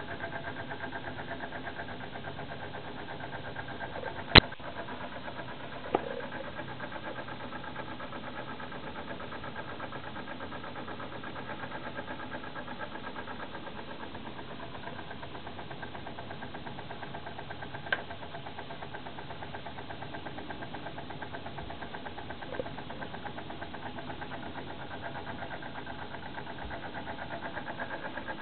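Hoover Zodiac 490 front-loading washing machine running its wash cycle: a steady mechanical hum from the motor and drum, broken by a few sharp clicks or knocks, the loudest about four seconds in and others at about six, eighteen and twenty-two seconds.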